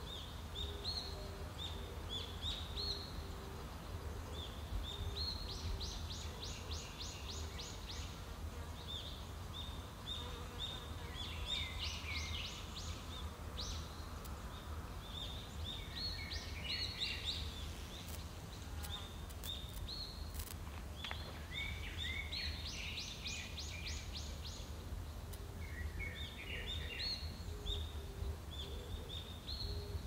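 Several songbirds singing: short high whistled phrases and repeated quick trills, over a steady low rumble of wind. A few faint clicks come about two-thirds of the way through.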